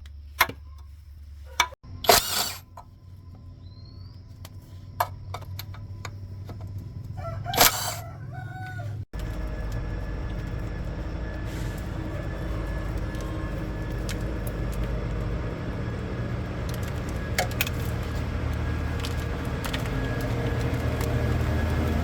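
A rooster crowing twice amid sharp knocks and clicks, then, after an abrupt cut about nine seconds in, a steady low mechanical drone that slowly grows louder.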